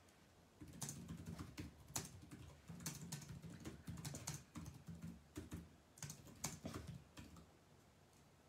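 Fingers tapping on a smartphone's touchscreen and handling the phone: an irregular run of soft taps and knocks, faint and picked up close by the phone's own microphone.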